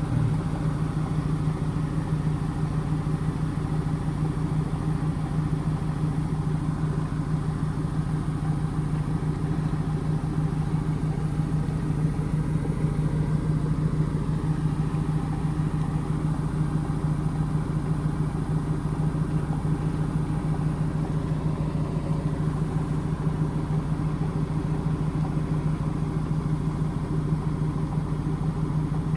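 Indesit front-loading washing machine spinning a full, unbalanced load of cottons during its intermediate spin, the drum motor giving a steady, even hum.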